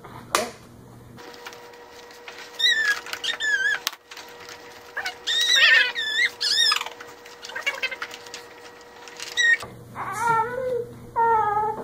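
Infant squealing several times in high, wavering cries, then making lower babbling sounds near the end. Short clicks and knocks come from the plastic walker as it is handled.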